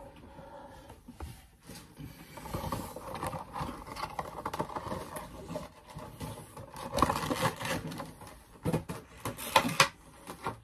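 Cardboard Funko Pop boxes being handled and moved about: irregular scrapes, rustles and knocks, loudest about seven seconds in and again near the end.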